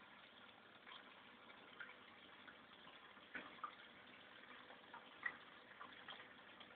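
Faint trickle of aquarium water with a few small scattered plinks, the sharpest about five seconds in.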